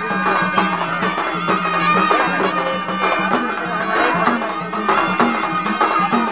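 Traditional folk music: a reedy melody wavering over a steady low drone, with a regular beat of percussion strikes.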